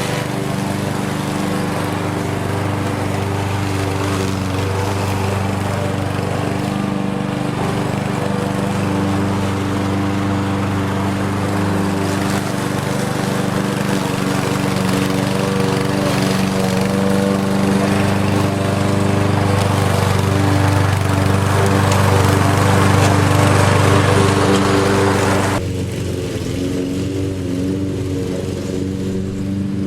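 Lawn mower engine running steadily, growing a little louder, then about 26 seconds in the higher hiss drops away suddenly and it carries on more quietly and duller.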